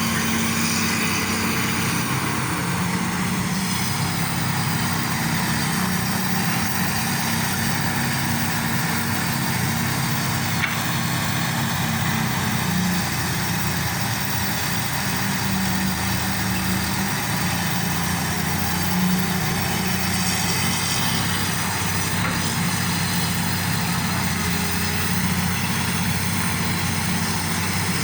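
Excavator's diesel engine running steadily at an even pace.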